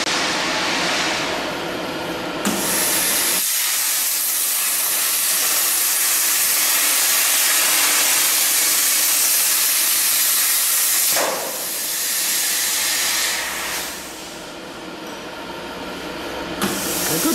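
Cutting torch on a CNC gantry cutting machine hissing steadily as its gas jet cuts through steel plate. The hiss jumps louder a couple of seconds in, dips twice, and rises again near the end.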